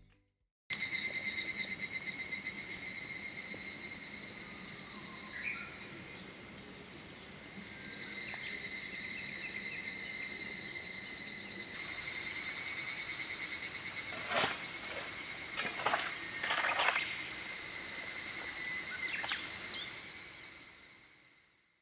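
Higurashi evening cicadas calling in a steady, high-pitched chorus at dusk, with a few short bird calls and several brief knocks in the second half.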